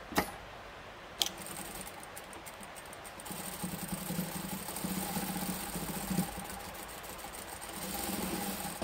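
Sewing machine stitching a seam through upholstery fabric and zipper tape: two clicks in the first second or so, then the machine runs steadily for about three seconds, stops, and runs again briefly near the end.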